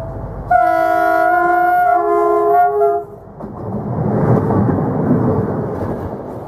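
Train horn sounding a chord of several notes for about two and a half seconds, its lower notes shifting partway through. A loud rushing rumble follows as the horn stops.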